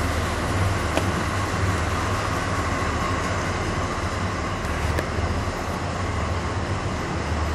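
Steady ambience of a large exhibition hall: a low rumble with an even background hiss, and faint clicks about a second in and again about five seconds in.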